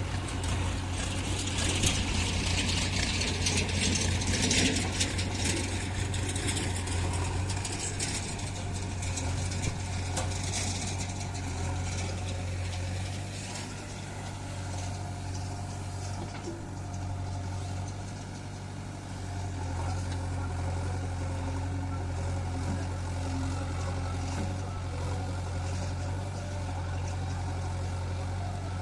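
Heavy diesel engine running steadily at a low, even drone, with a harsh rushing noise over it for roughly the first ten seconds that then fades.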